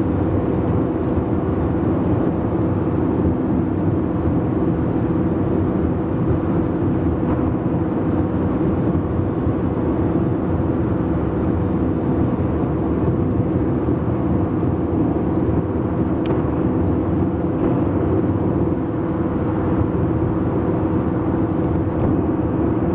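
Steady engine hum and tyre-on-road noise inside the cabin of a car cruising at motorway speed.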